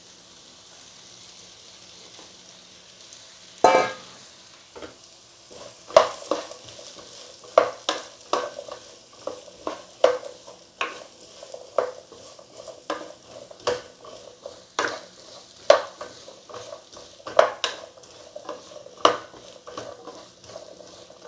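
Metal spatula stirring chopped bottle gourd in a kadai of hot oil with spices: a steady low sizzle, a loud rush about four seconds in, then sharp scrapes and knocks against the pan about once a second.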